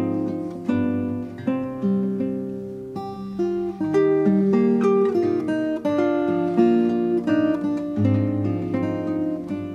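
Background music on solo acoustic guitar: plucked notes and chords, each sharply struck and ringing away, at an unhurried, steady pace.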